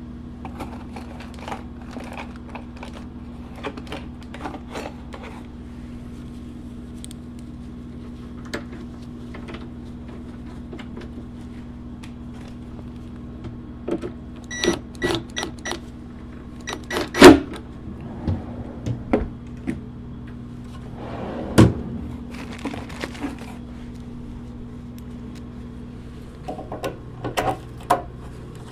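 Scattered knocks, taps and clatter of a plywood drawer part being handled and fitted into a wooden cabinet, with a few short metallic clinks. Two sharp knocks come past the middle, the first the loudest. A steady low hum runs underneath.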